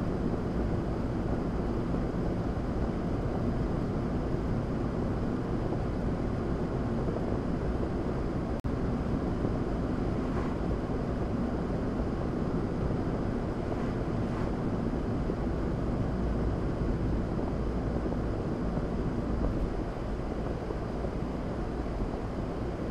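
Steady road noise of a car cruising at about 45 to 50 mph, tyre and engine noise heard from inside the cabin, with a very brief cut in the sound about eight and a half seconds in.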